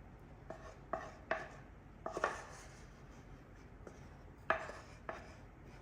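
A spoon tapping and scraping against a metal pan as caramel is emptied out of it: about six short, sharp knocks with a brief metallic ring, irregularly spaced.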